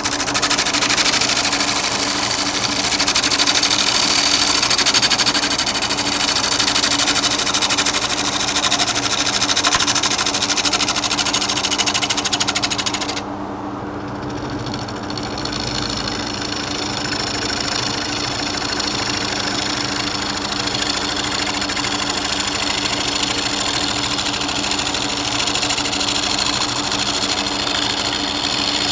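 Wood lathe spinning a large pippy oak disc, with the motor's steady hum under the hiss of a small scraper cutting across the disc's knotty face to flatten it. About halfway through, the scraping suddenly drops out, then comes back softer.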